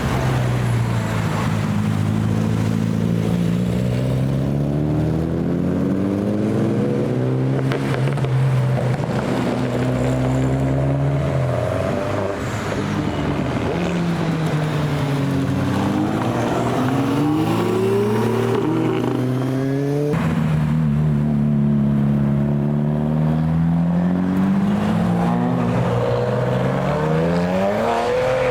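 Several performance car engines accelerating one after another, their pitch climbing and then dropping back at gear changes, with cars passing by.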